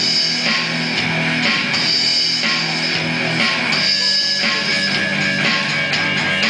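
Live rock band playing: strummed electric guitar through an amplifier over an electronic drum kit.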